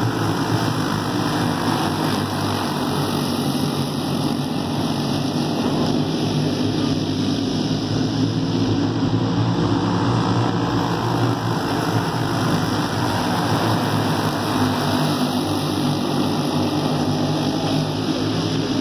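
A pack of racing go-karts running laps, several small engines blending into one steady, continuous engine sound.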